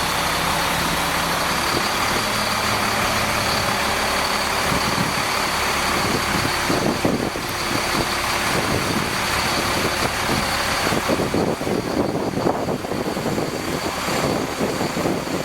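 Heavy truck engine running, its speed shifting a little now and then.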